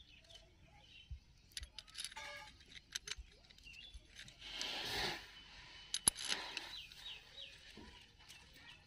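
Faint clicks and clinks of hand tools and metal parts as a motorcycle engine's clutch assembly is fitted, with a louder scraping rustle about five seconds in.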